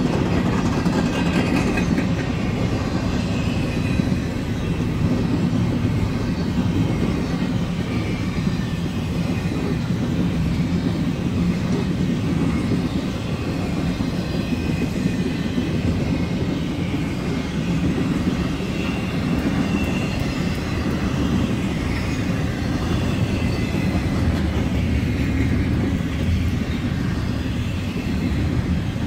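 BNSF double-stack intermodal freight train's well cars rolling past at close range: a steady rumble of steel wheels on rail that neither builds nor fades.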